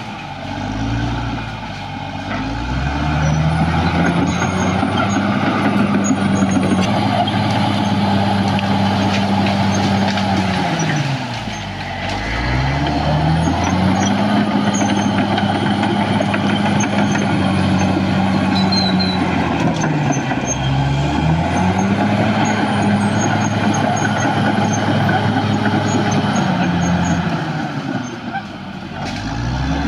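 Caterpillar D6R XL bulldozer's diesel engine working hard. Its revs drop away and climb back up about every eight to nine seconds. A faint high-pitched squeal glides up and down above it.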